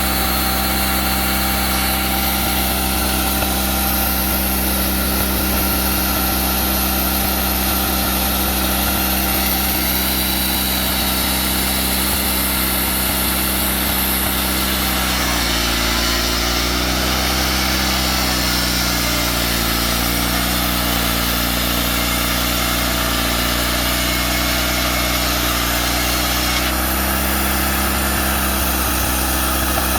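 Wood-Mizer LT40 sawmill's engine running steadily. From about halfway to near the end its note shifts slightly and a higher hiss rises, then it settles back to the earlier sound.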